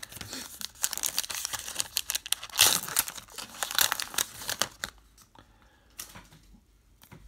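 Foil wrapper of a baseball card pack being torn open and crinkled, loudest about two and a half seconds in. It dies down after about five seconds, leaving a few faint ticks.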